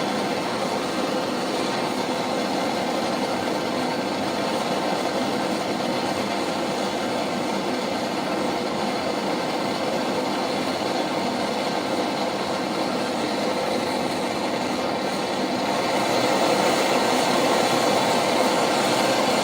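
Handheld gas blowtorch flame burning steadily with a constant rushing hiss as it heats solder in a mould. It gets a little louder about three-quarters of the way through.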